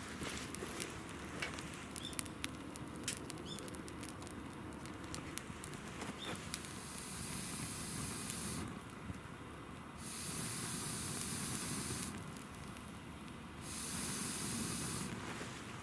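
Campfire burning: wood crackling with sharp pops, then three stretches of high hissing of a couple of seconds each that start and stop abruptly.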